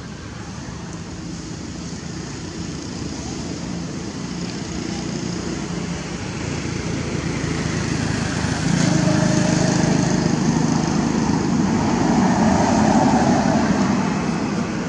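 An engine running steadily, growing louder about halfway through and easing off near the end.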